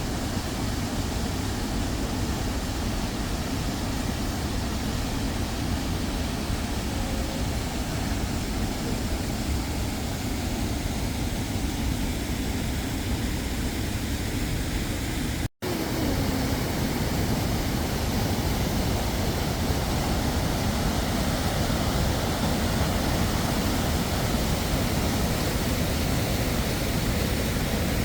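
Waterfall rushing in a steady, even roar. It breaks off for an instant about halfway through and resumes a little louder.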